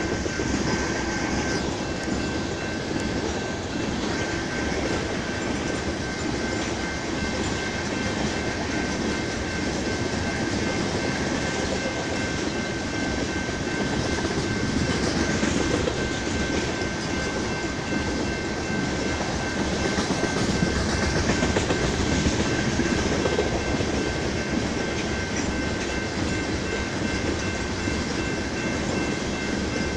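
A long BNSF freight train of tank cars rolling past at trackside: a steady rumble with rhythmic wheel clatter as the cars pass. A steady high-pitched tone sits over it.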